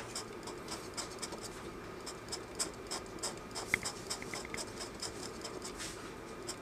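Craft knife blade scratching and cutting screentone on a manga page in quick, short, irregular strokes, with one sharp click a little before four seconds in.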